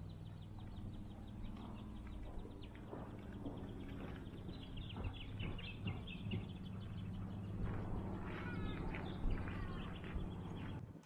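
Birds calling in repeated chirps and warbles over a steady low hum.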